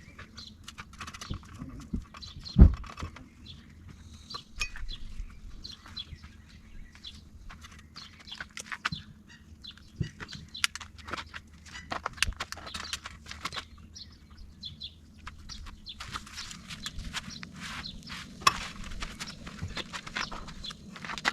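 Kitchenware being handled during breakfast preparation: scattered clicks, clinks and knocks of pots, utensils and containers, with one loud thump about two and a half seconds in.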